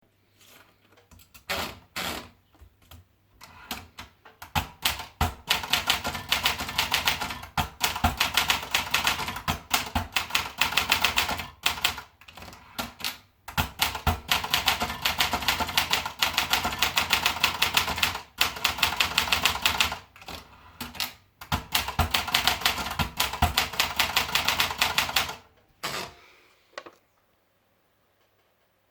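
Olympia Splendid 33 manual portable typewriter being typed on: fast runs of key strikes with short pauses between runs. The typing stops a couple of seconds before the end.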